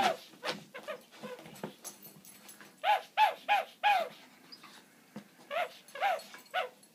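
Small dog yipping: short high-pitched barks in quick runs of three or four while it play-attacks a foot.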